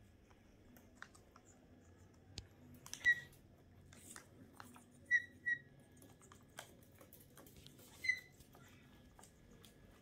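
Pet parrots giving short whistled chirps: one about three seconds in, a quick pair about five seconds in, and another near eight seconds. Between them, light clicking and tapping of beaks pecking at a plastic snack wrapper and the wooden tabletop.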